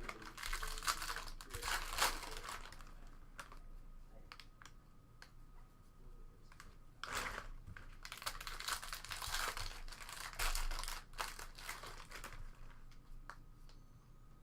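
Wrapper of a Bowman Jumbo baseball card pack crinkling and tearing as it is opened and handled. The rustling comes in bursts: over the first few seconds, briefly around seven seconds in, and again for several seconds after that. Light taps and clicks run through it.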